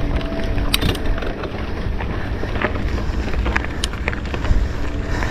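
Steady wind rumble on the microphone while riding a mountain bike uphill, with a few scattered clicks and rattles from the bike.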